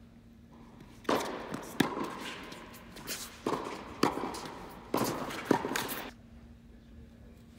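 Tennis doubles rally: about nine sharp knocks of racket strings on the ball and ball bounces on the hard court between one and six seconds in, each echoing in a large indoor hall, then a lull.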